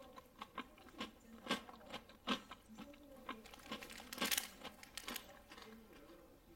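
Someone eating crunchy food: irregular crisp crunches, about one or two a second, with the loudest a little past four seconds in.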